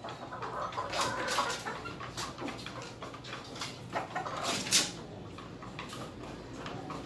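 Chickens clucking in a wooden coop, with a few sharp clicks and knocks about two-thirds of the way in, one of them the loudest sound.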